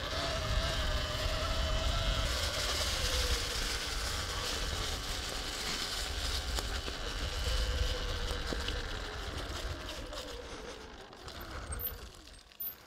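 Sur-Ron Ultra Bee electric dirt bike riding a forest trail: a steady electric-motor whine over rolling and wind noise. Near the end the whine drops in pitch and the noise fades as the bike slows to a stop.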